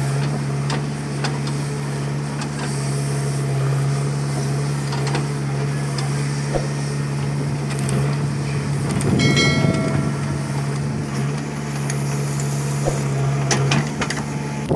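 JCB 3DX backhoe loader's diesel engine running steadily while it digs and loads soil into a tractor trolley, with scattered knocks. About nine seconds in there is a brief high whine with a rush of noise.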